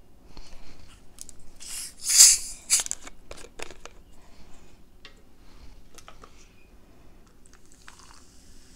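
Plastic bottle of carbonated cola (Pepsi Zero Sugar) being handled and twisted open, with a loud burst of hiss about two seconds in and a run of sharp clicks. Near the end the cola is poured over ice in a glass, and a steady fizzing hiss begins.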